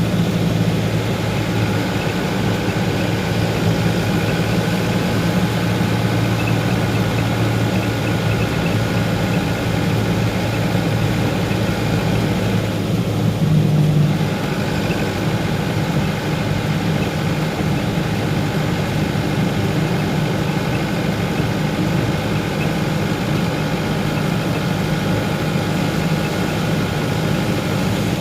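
A vehicle engine running steadily, with a brief swell in level about halfway through.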